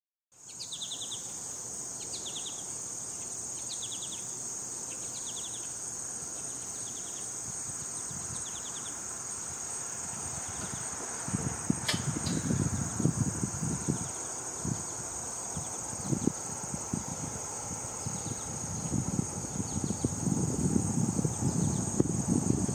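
Steady high-pitched insect chorus, with a short chirp repeating about every second and a half through the first half. One sharp click comes near the middle, and irregular low rumbling builds from about halfway on.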